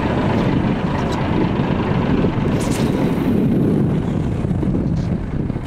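Wind rumbling on the microphone aboard a fishing boat at sea, a rough low noise with a few faint ticks; it eases a little near the end.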